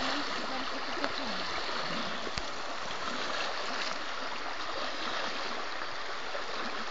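Shallow flooded creek running in a steady rush of water. A single sharp click about two and a half seconds in.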